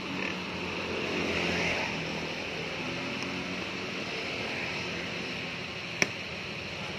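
Town road traffic running past, a motor vehicle's engine swelling by about a second in. A single sharp click comes about six seconds in.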